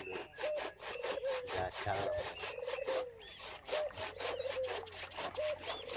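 Manual handsaw cutting through a mango-wood log with quick, even back-and-forth strokes, about four a second. A few short high chirps sound over the sawing.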